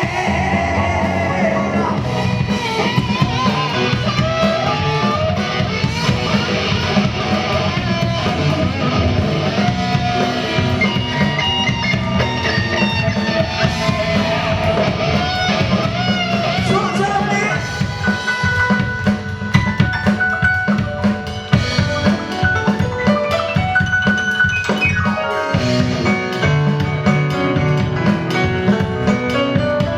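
Live rock-and-roll band playing loudly, with a drum kit keeping a driving beat and guitar lines over it.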